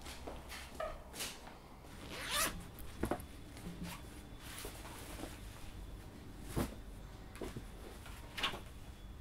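A fabric backpack being unzipped and rummaged through: a handful of short zipping and rustling swishes, spread out over the few seconds. Near the end, papers are handled.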